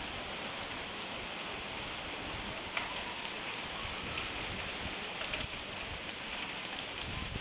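Heavy rain pouring steadily onto a paved courtyard, an even hiss of downpour.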